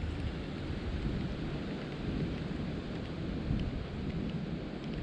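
Steady low rumble and hiss of wind buffeting the microphone, with a few faint ticks.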